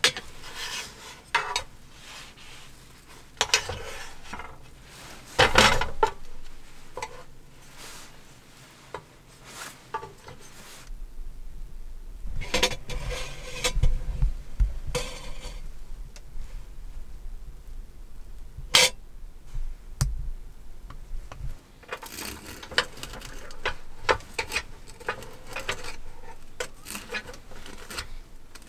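A spatula scraping and knocking on the plate of an electric hot plate as a thick pancake is loosened and cut, with scattered clinks of crockery and one sharp click a little past halfway.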